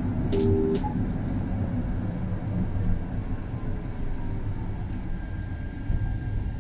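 Tram running along its track, heard from inside at the front: a steady low rumble of motors and wheels on rail. A short electronic beep sounds about half a second in.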